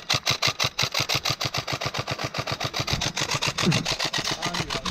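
Airsoft rifle firing a long string of shots, starting abruptly and keeping up a fast, even rhythm of sharp cracks, several a second.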